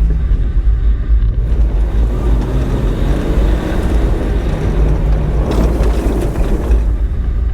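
Renault Duster AWD driving on an off-road track: a steady deep rumble with the engine note shifting as it pulls, and a louder rush of noise about five and a half seconds in.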